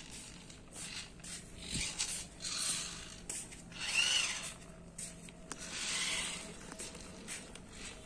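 Small motors in the joints of a homemade robot arm whirring in several short bursts as the arm swings from pose to pose, one burst with a whine that rises and falls.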